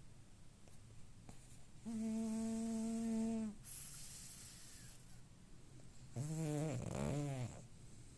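Snoring. A drawn-out snore on one steady pitch comes about two seconds in and is followed by a short, high hiss of breath out. A second snore near the end wobbles up and down in pitch.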